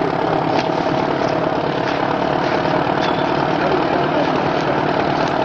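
Engine of the heavy vehicle pulling the wreck from the bog, running steadily at high revs under load.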